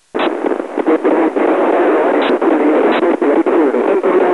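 Narrowband FM receiver audio from the Tanusha-2 (RS7S) satellite's 145.800 MHz voice repeater. The squelch opens just after the start on a loud, hissy, noisy signal, with a weak, garbled voice buried in it.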